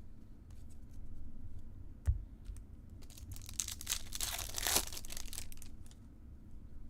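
A foil trading-card pack wrapper being torn open and crinkled, the tearing lasting about two seconds past the middle, with light clicks of card handling and a soft thump about two seconds in.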